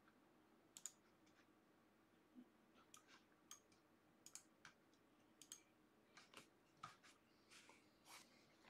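Faint, irregular clicks of a computer mouse and keyboard, about fifteen to twenty short clicks spread out with gaps between them.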